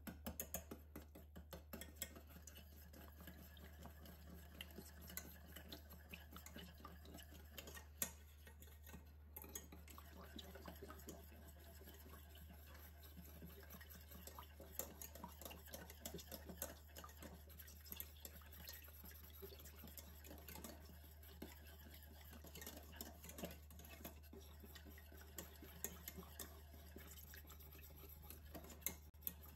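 Wire whisk beating egg yolks into milk in a stainless steel saucepan: faint, quick, rapid ticking and scraping of the wires against the metal pan, with a sharper click now and then.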